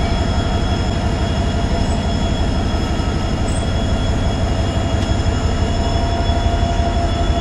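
Diesel engine of a WDP4D locomotive, an EMD 710-series two-stroke, running under load as the locomotive moves slowly, heard from the cab door beside the engine hood. A deep, steady rumble with a steady high whine of several tones over it.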